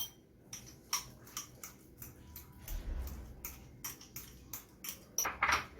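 Metal fork mashing avocado, clicking against the dish in a string of sharp, irregular taps a few each second, with a longer scrape near the end.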